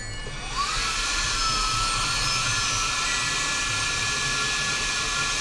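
Hot air rework station switching on: its fan spins up with a rising whine about half a second in, then blows with a steady loud hiss.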